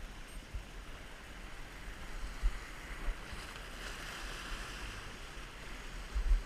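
Sea surf surging and washing over a rock ledge, a steady rushing wash, with a few brief low thumps of wind on the microphone, the biggest one near the end.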